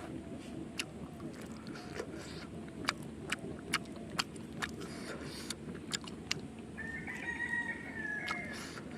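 A rooster crows once for about a second and a half, starting about seven seconds in, over the scattered clicks and smacks of someone chewing a meal.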